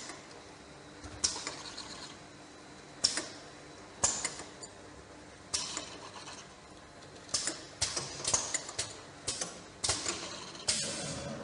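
Powder filling line running: sharp, irregular plastic-and-metal clacks as jars move along the conveyor under the auger filler, over a faint steady machine hum. The clacks come a second or two apart at first and quicker and closer together in the second half.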